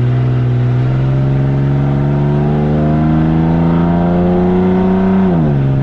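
Vehicle engine under steady acceleration, its pitch climbing slowly for about five seconds, then dropping quickly and settling lower near the end.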